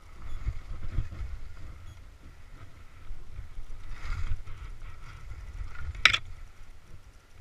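Skis running and chattering over chopped-up snow, a steady low rumble that surges and eases with the turns. About six seconds in there is one sharp crack as the skier brushes through bare aspen branches.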